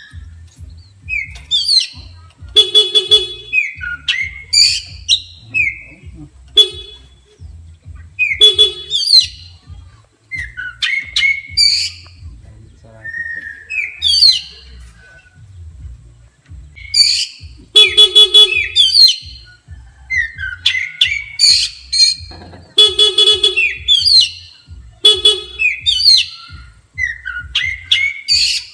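Oriental magpie-robin singing loudly and continuously: rapid, varied whistled phrases that glide up and down, broken every few seconds by short harsh, buzzy notes. This is the fired-up ('emosi') singing that kacer keepers provoke by playing a horn.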